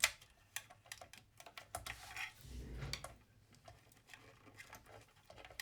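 Irregular light clicks and taps of small metal parts, a screw and spacer, being handled with tweezers while they are fitted into place. A sharper click comes at the very start, and there is a soft rustle of handling about two seconds in.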